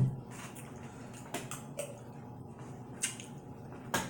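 Wet eating sounds from saucy head-on shrimp: chewing and sucking, broken by four short sharp smacks about a second apart.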